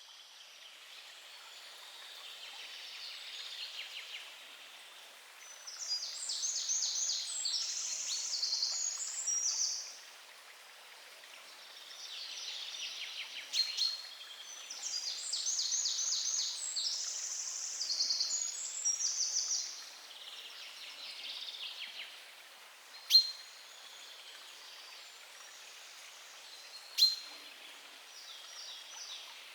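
Songbirds singing in a forest over a faint steady hiss: two long songs of quick, trilled repeated notes, with softer phrases between them. Near the end, two short sharp ticks stand out as the loudest sounds, about four seconds apart.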